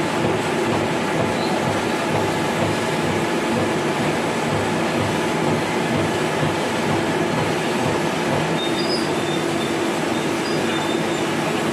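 Lathe running, a steady mechanical whir of motor and gearing with a constant humming tone throughout.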